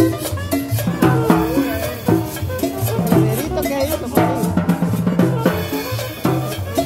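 Live band playing dance music, with saxophone, double bass and drums keeping a steady beat.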